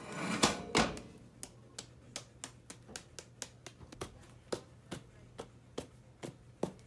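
A hand tapping a plastic seasoning jar to knock seasoning out onto a fish fillet, about three light taps a second. The first second holds a louder, noisier shake of a seasoning container.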